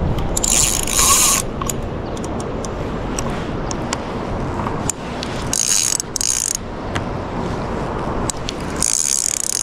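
Fishing reel's drag clicking in short bursts as a hooked fish pulls line off against the loosened drag: about half a second in, twice around five to six seconds, and again near the end.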